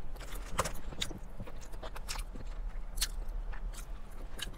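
A person chewing and biting fried chicken close to the microphone, with irregular short clicks from the mouth and food.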